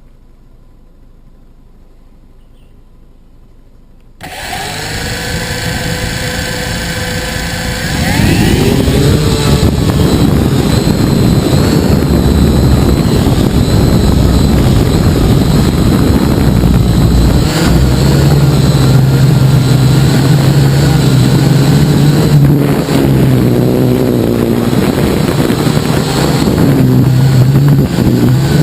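Syma X8HG quadcopter's motors and propellers spin up suddenly about four seconds in to a steady whine, then rise in pitch and get louder a few seconds later as it throttles up into flight. Once it is flying, the whine wavers up and down with the throttle.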